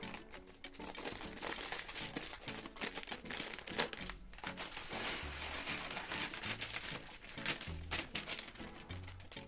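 Plastic packaging or bags crinkling and rustling as they are handled, in irregular bursts throughout.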